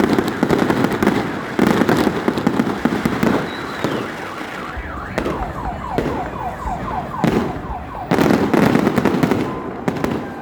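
Fireworks salute going off in volleys of bangs and dense crackling. About halfway through comes a run of short, quickly repeated falling whistles.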